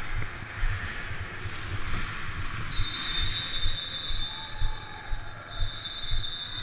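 Footfalls and gear rustle of a player moving on a concrete floor. About three seconds in, a steady high-pitched tone comes in and holds, fading a little in the middle.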